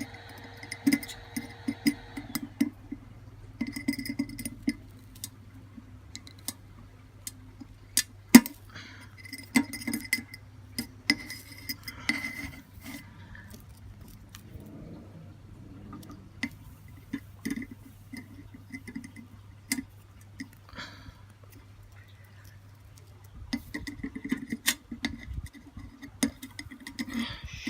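Irregular light metal clicks and clinks of small copper pieces being handled with pliers while soldering, with one sharper tap about eight seconds in, over a faint steady hum.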